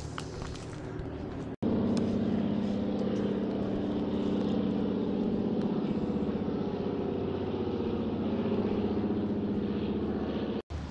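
Steady motor hum made of a dense stack of tones, cutting in abruptly about a second and a half in and cutting off just as abruptly near the end; before it, faint outdoor ambience.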